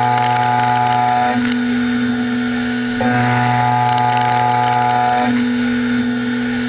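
Sandvik CoroMill Plura HFSM solid carbide end mill side-milling metal in a CNC machining centre with a WaveForm toolpath. The cutter sings with a steady pitched tone in two passes of about two seconds each. The first pass stops about a second and a half in, and the second runs from about three seconds to just past five. Between passes a lower machine hum carries on while the tool repositions.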